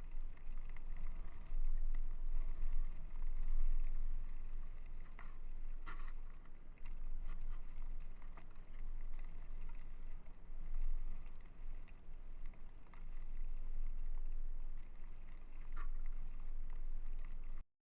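Blizzard wind buffeting a trail camera's microphone: a low rumble that swells and eases in gusts, with a few short, faint ticks.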